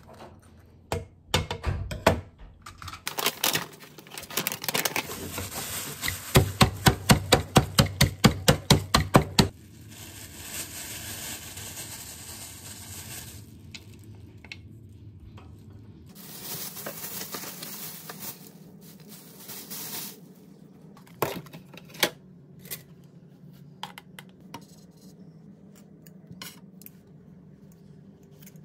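Salad being made in a wooden bowl: scattered knocks of a knife and utensils against the bowl, a quick run of taps about four a second a few seconds in, then plastic bag crinkling.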